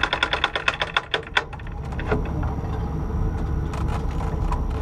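Taylorcraft BC-12D's engine shutting down: the running sound cuts off and a quick run of clicks slows over about a second and a half as the propeller winds to a stop. A low steady rumble remains after that.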